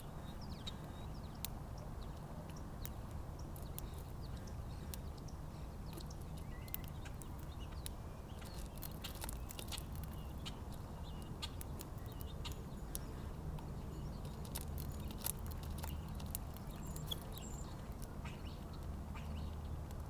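Small birds at a backyard feeder: scattered short chirps and sharp clicks, busiest in the middle, over a steady low background rumble.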